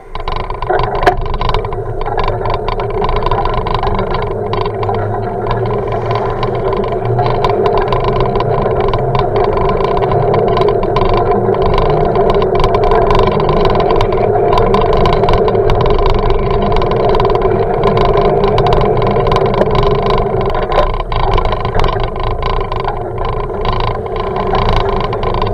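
Steady rumble and rush of a bicycle rolling along an asphalt street, picked up muffled through an action camera's waterproof housing, with many small rattles and clicks from the bumps of the ride.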